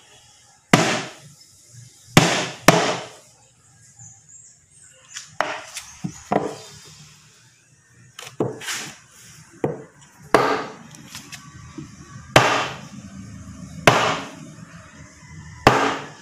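The leaking clutch slave cylinder from a Kia K2700 being knocked down against a bench again and again: about ten sharp knocks at uneven spacing, one every second or two.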